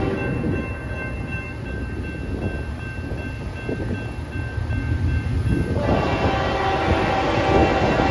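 Approaching freight train led by GE Evolution Series diesel locomotives, engines rumbling. About six seconds in, the lead locomotive's horn sounds a long chord that holds on.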